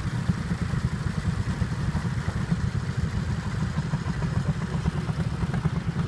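Small engine of a two-wheeled walk-behind tractor running steadily under load as it pulls a plough through the soil, with a fast, even beat.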